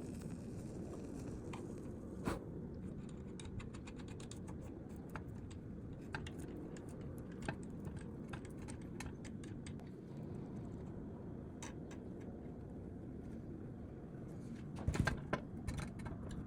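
Scattered light clicks and taps over a steady low background rumble, with a short cluster of louder knocks near the end.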